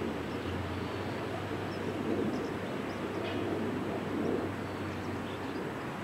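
Outdoor background noise: a steady low rumble that swells and fades every second or two, with a few faint high chirps from small birds.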